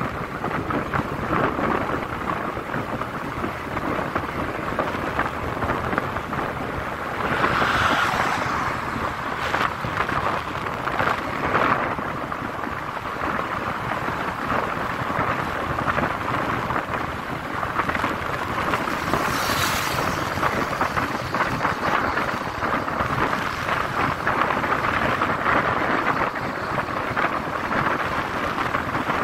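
Wind rushing over the microphone of a phone on a moving motorcycle, a steady buffeting with two stronger gusts, the engine and tyre noise buried underneath.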